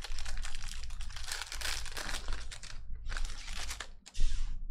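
Foil trading-card pack wrapper crinkling as it is torn open by hand: a long stretch of crackling for the first two and a half seconds, then a few shorter crinkles.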